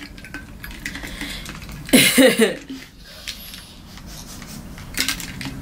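A short, loud vocal sound about two seconds in, then quieter sounds of a person drinking water from a plastic shaker bottle.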